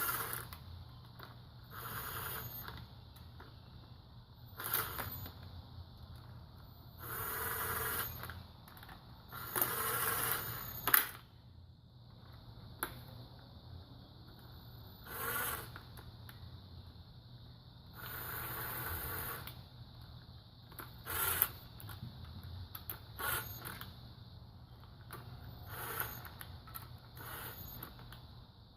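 Intermittent metallic scrapes and clinks of tools and engine parts being handled during engine assembly, in short bursts every few seconds with one sharp click about eleven seconds in, over a faint steady hiss.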